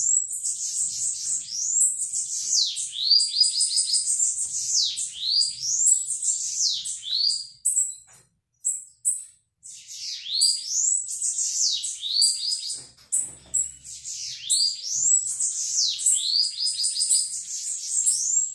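Bananaquit singing: high, thin phrases of rapid sweeping notes, each dipping and rising in pitch, repeated one after another, with a short break about eight seconds in.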